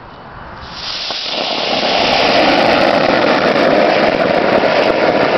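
Homemade fountain firework, crushed sparkler composition packed into a foil- and duct-tape-wrapped plastic oil bottle, catching about a second in and spraying sparks with a loud, steady rushing hiss that builds to full strength over the next second.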